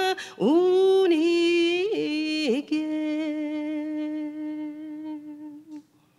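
A solo voice sings a slow melody without words, in long held notes that it slides up into. The last note is held for about three seconds and fades out near the end.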